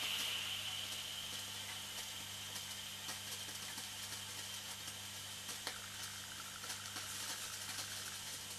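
Small toy steam engine running on saturated steam fed straight from the boiler: a soft steady steam hiss with light scattered clicks. A thin high whistle fades away over the first few seconds.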